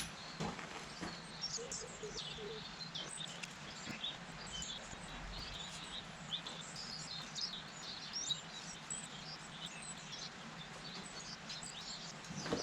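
Small birds chirping and singing continuously in quick, varied notes, over a faint steady hum with a few light clicks.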